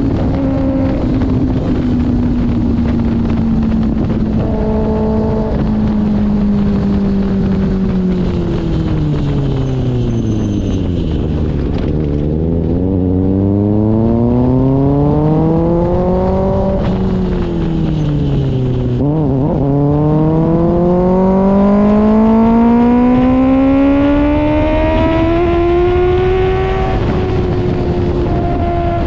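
2024 Kawasaki ZX-6R inline-four engine through an IXIL aftermarket exhaust. Its note slowly falls for about twelve seconds, then climbs, dips briefly about two-thirds of the way through, and climbs again to its highest point a few seconds before the end before easing off slightly.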